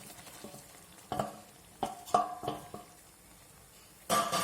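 A spoon knocking and scraping in a metal cooking pot as fried okra is tipped into the boiling masala gravy and stirred in: several short ringing clinks, the loudest one near the end.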